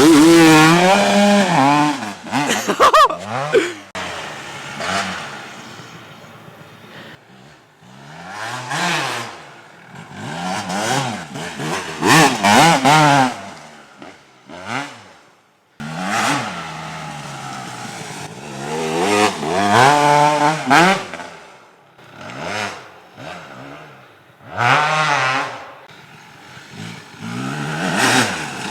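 Kawasaki KX250 two-stroke dirt bike with a Pro Circuit expansion pipe, revved hard in several runs, the engine pitch climbing through each gear and then falling away.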